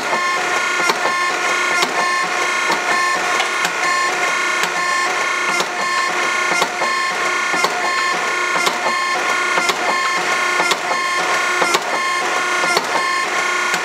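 Hydraulic forging press cycling automatically, about one stroke a second. The hydraulic pump whines steadily, its pitch dipping at each stroke, and a sharp click or knock marks every cycle as the ram reverses and the dies press the hot steel bar.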